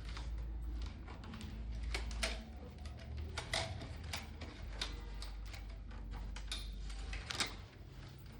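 Irregular sharp clicks and taps of hand work, a few louder ones among many light ones, over a steady low rumble.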